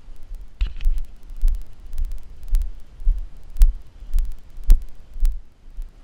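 Rhythmic low thudding, about two thumps a second with faint clicks, typical of footsteps jarring a body-mounted GoPro as its wearer walks.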